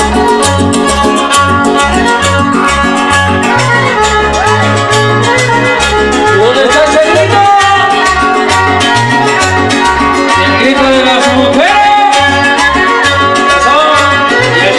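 Loud Latin dance music from a band, with a pulsing bass line and a lead melody that slides up and down in pitch.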